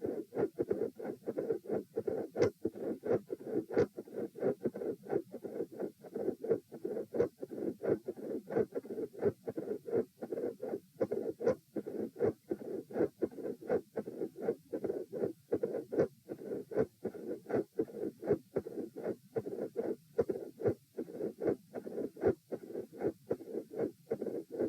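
Heartbeat heard through a stethoscope, a steady lub-dub at a resting rate of about 78 beats a minute. The uploader labels it a midsystolic murmur with a click and a fixed split second heart sound.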